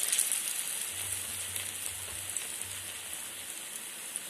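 Pumpkin pakoras deep-frying in hot mustard oil in a kadhai: a steady sizzling hiss with fine crackle. It jumps louder at the start as a fresh piece of batter drops into the oil.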